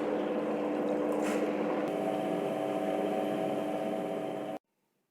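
Electric wet grinder running steadily with a motor hum, its stones grinding soaked rice into idli batter. The sound cuts off suddenly near the end.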